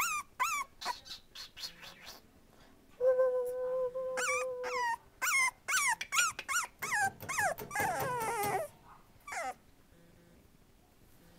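Young puppy, about four and a half weeks old, whimpering: a string of short high cries that each fall in pitch, one longer steady whine about three seconds in, and a rougher drawn-out cry, stopping about two-thirds of the way through.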